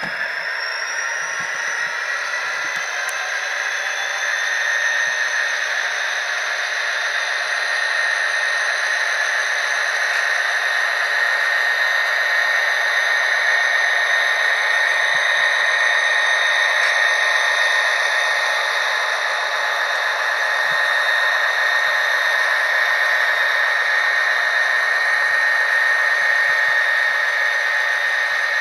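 SoundTraxx Tsunami sound decoders in two HO-scale model diesel locomotives, an SD40-2 and an SD60, playing diesel engine and turbocharger sound through their small onboard speakers, thin and tinny with no low end. A whine rises in pitch over the first couple of seconds, then holds steady, growing slightly louder as the locomotives come closer.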